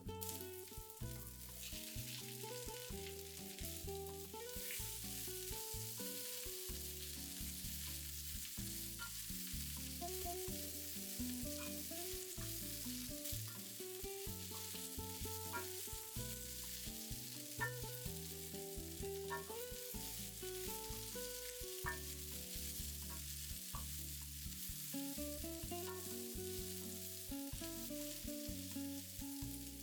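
A steady sizzling hiss, setting in about a second in, over background music with low stepped notes.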